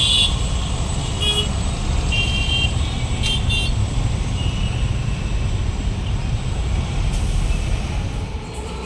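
Steady road-traffic rumble with several short car-horn toots in the first half.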